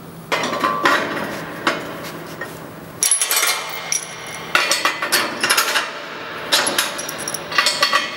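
Steel grate plates and pins of a clinker cooler floor being fitted by hand: irregular metal-on-metal clanks, clinks and knocks, some ringing briefly. A first clank comes about half a second in, and a busier run of clinks starts about three seconds in.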